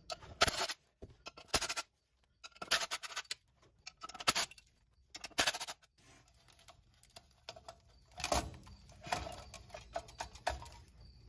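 Scattered metal clinks and clatter from tools and parts being handled, coming in short bursts with quiet gaps between.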